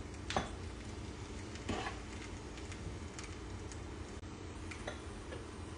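Wooden spoon scooping chicken-and-pepper filling out of a frying pan onto a tortilla: a sharp knock, then a short scrape a second and a half later, and a few faint ticks, over a steady low hum.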